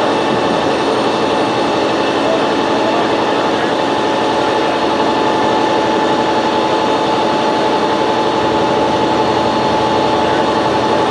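Crane engine and hydraulics running steadily under load as the crane hoists a hydroplane on slings, a heavy hum with a constant whine over it.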